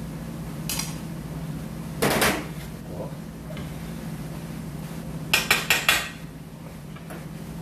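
Kitchenware clattering while beaten egg is mixed into minced meat in a stainless steel bowl: a clank about two seconds in as a bowl is set down, then four quick sharp metallic taps of utensils against the bowl a little after halfway, over a steady low hum.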